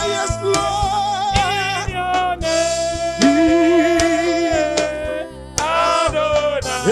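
Worship choir singing long, wavering notes without clear words over a band with a steady drum beat.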